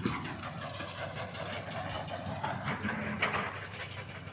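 Heavy hydraulic excavator's diesel engine running steadily.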